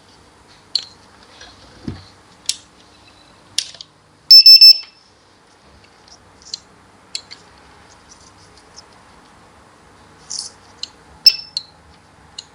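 USB barcode scanner beeping: three quick, loud, high-pitched beeps about four seconds in, with scattered light clicks and taps around them.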